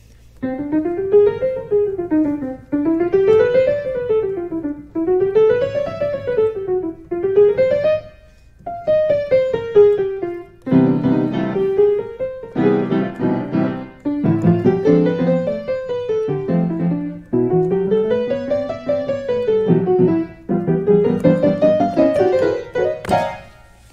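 Piano playing flowing runs that sweep up and down, one rise and fall about every two seconds, then a descending line over fuller chords in the bass from about eleven seconds in. The playing stops shortly before the end.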